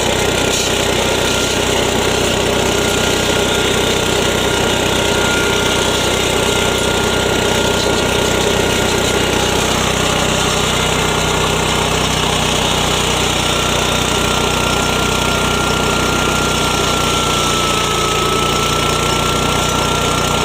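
Yasuka 3-in-1 mini rice mill and flour grinder, driven by its 7–7.5 HP engine, running steadily at full speed while grinding material into flour through its fine sieve. A faint whine rides over the engine and rises slightly near the end.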